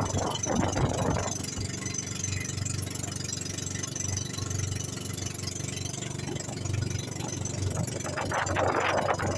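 Outrigger boat's engine running steadily, a low pulsing hum, with louder rushes of noise near the start and again near the end.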